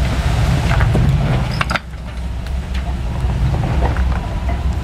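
Early Ford Bronco engine running at low revs as the truck crawls over rocks, a steady low rumble. A few sharp clicks and knocks come about a second and a half in, after which the sound drops a little quieter.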